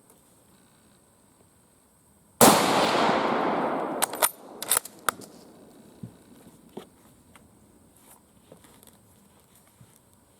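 A single shot from an Argentine 1909 Mauser bolt-action rifle in 7.65×53mm Argentine, a sharp crack with a long echoing tail, followed by several sharp metallic clicks of the bolt being worked to eject the case and chamber the next round.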